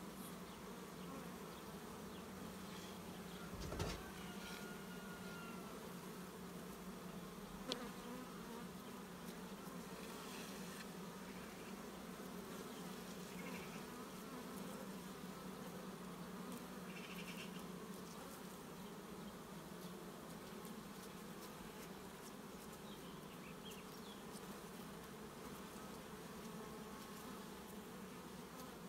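Carpathian honeybees buzzing in a steady hum around an open hive. There are two brief sharp knocks, about four and eight seconds in.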